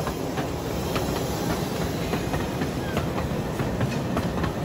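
Little Puffer miniature steam train running on its track: a steady rumble with scattered sharp clicks.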